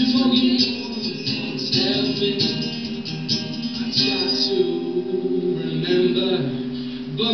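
Live acoustic song: an acoustic guitar strumming with a voice singing along.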